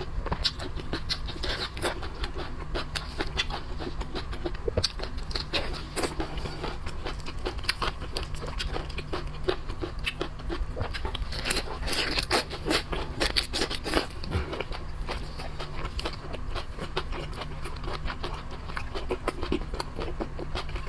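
Shellfish shells being cracked, pulled apart and chewed: a dense run of short crackles, crunches and scrapes, busiest a little past the middle, over a steady low hum.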